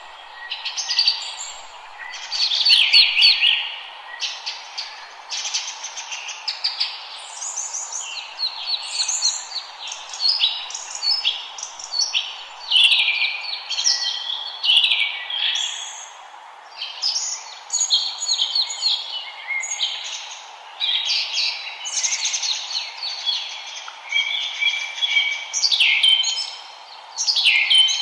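Several forest songbirds singing at once, a dense overlap of quick chirps, trills and whistled phrases, over a steady low hiss.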